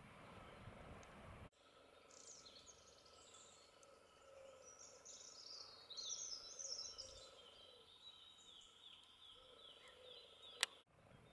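Faint outdoor background noise cuts off suddenly about a second and a half in. Small songbirds then sing quietly for several seconds, fast high twittering and runs of falling trills, and a single sharp click comes near the end.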